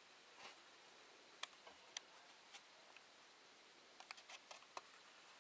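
Near silence: room tone with a few faint, sharp clicks scattered through, bunched together about four seconds in.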